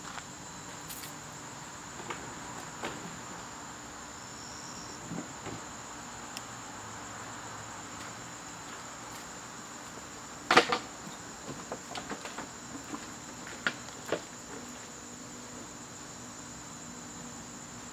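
Crickets chirping in a steady, high, unbroken tone. About ten seconds in, a cluster of sharp knocks or clicks cuts in, the loudest sounds here, with a few more following over the next few seconds.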